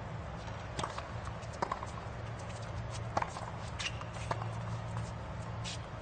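Tennis ball struck by rackets and bouncing on a hard court during a rally: a string of sharp pops every half second to a second and a half, over a steady low hum.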